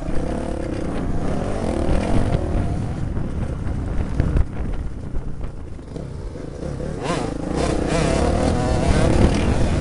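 Motocross dirt bike engines running and revving on a dirt track, their note wavering up and down with the throttle and rising again about seven seconds in.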